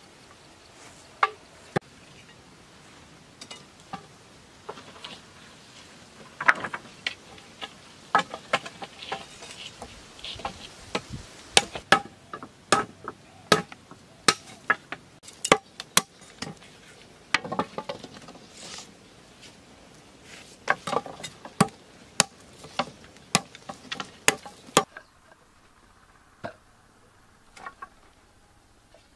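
Wooden sticks and poles knocking and clacking as they are handled and fitted into a frame: irregular sharp knocks coming in quick clusters, thinning out near the end.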